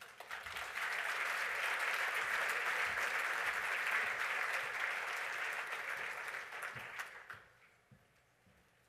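Audience applauding, rising straight away, holding steady for several seconds, then dying away about seven seconds in.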